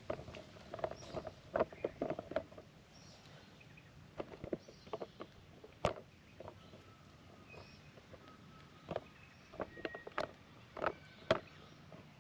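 Irregular short taps and knocks, a few of them loud sharp clicks, over a quiet steady background with faint high chirps coming and going.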